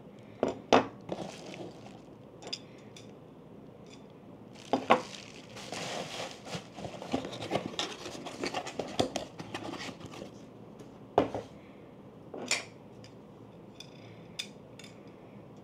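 Metal camera cage parts and their packaging being handled by hand: scattered clinks and knocks of metal, with a busier stretch of small clicks and rustling in the middle.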